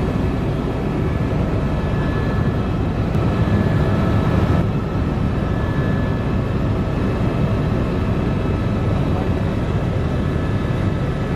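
Sightseeing helicopter in flight, heard from inside the cabin: a steady, loud low rumble from the engine and rotor, with a few faint steady high tones running through it.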